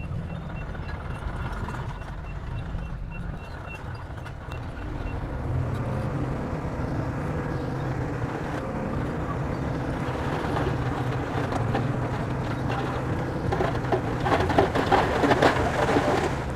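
Bulldozer's diesel engine running under load; it grows louder about five seconds in. Near the end comes a stretch of louder clattering and crunching, as of soil and tracks being worked.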